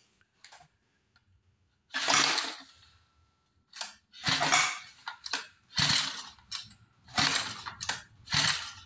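Small four-stroke engine of a Bison portable spray machine being pull-started on half choke: the recoil starter rope is yanked about five times, a short burst of cranking with each pull and a shorter rattle as the rope winds back, the engine catching on the last pull.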